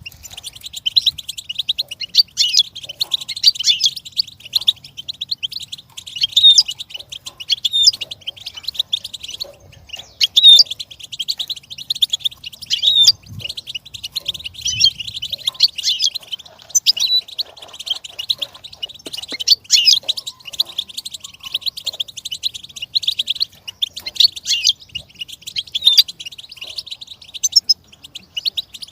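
Goldfinch singing: a nearly unbroken stream of rapid, high-pitched twittering notes and trills.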